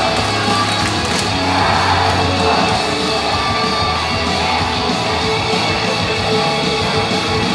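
Loud rock-style idol pop song with electric guitar and a steady bass line, played live over the PA, with some shouting from the crowd.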